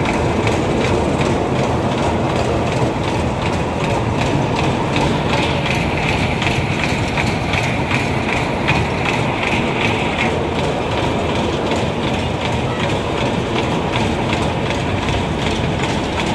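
Spinning carnival ride running at speed: a steady loud rumble and rattle of the cars rolling round the hilly track, heard from aboard one of the cars.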